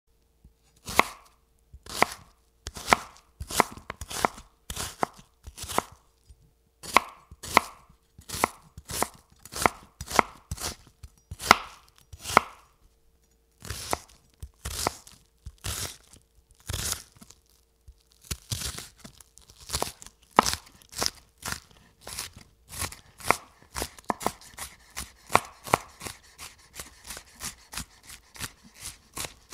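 A steady run of sharp knocks, about one or two a second, coming faster from about halfway through.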